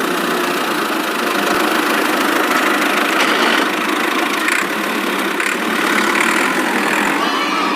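Battery-powered toy car running with a steady, engine-like noise.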